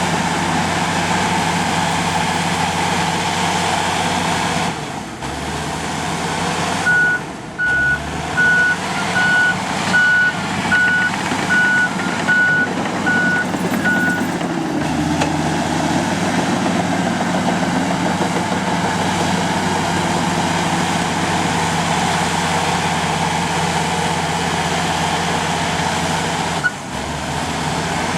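Komatsu D85 bulldozer's diesel engine running steadily, its note dipping briefly a few times. About seven seconds in, its reverse alarm beeps about ten times at an even pace, then stops.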